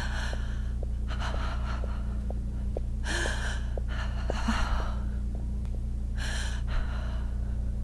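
A woman sobbing in gasping breaths: about five heaving, breathy gasps a second or two apart, over a steady low hum.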